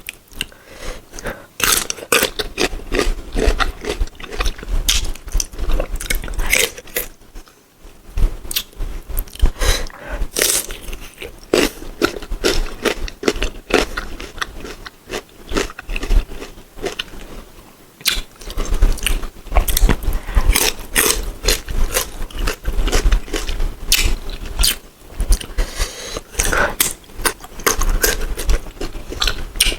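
Crunchy bites and chewing of firm, unripe green mango, a quick run of crisp cracks and smacks heard close up, with short pauses between mouthfuls.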